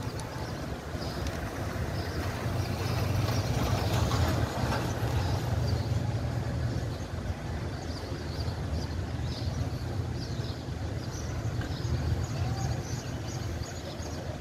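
Steady low rumble of outdoor city background noise, like distant traffic and wind on the microphone, with faint short high chirps scattered throughout.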